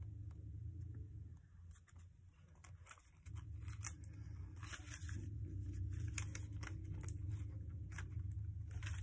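Origami paper being folded and creased by hand: crinkling and rustling with many short, sharp crackles. A steady low hum sits underneath and drops away for a couple of seconds near the start.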